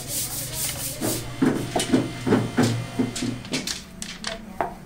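Rhythmic hand rubbing strokes on the wood of a snooker cue, about three a second, starting about a second in after a brief hiss.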